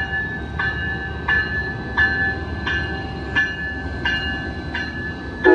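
Bell of a Siemens Charger diesel-electric locomotive ringing about every 0.7 s as the train pulls out of the station, over the low rumble of the locomotive and rolling train. The horn starts to blow at the very end.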